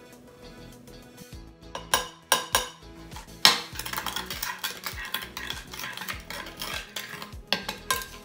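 Metal spoon stirring glue-and-glitter slime mixture in a glass bowl as baking soda is worked in: a few sharp clinks of the spoon on the glass about two seconds in, then steady scraping, clinking stirring.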